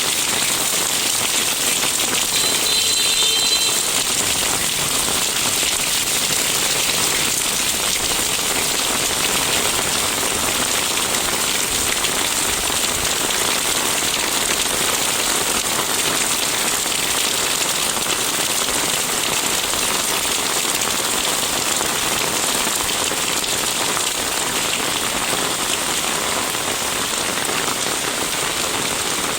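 Steady rain falling on a street and the eaves of old houses, an even hiss that stays at one level.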